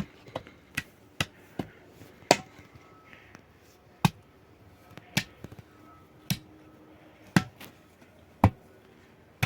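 Repeated strikes of a hand tool: a few quick knocks early on, then heavier, evenly spaced blows about once a second.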